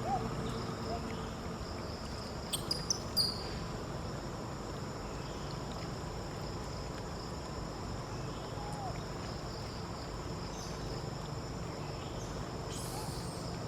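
Steady chorus of insects (crickets or cicadas) buzzing on a couple of high even pitches. About three seconds in there is a quick run of four or five short, sharp, high chirps.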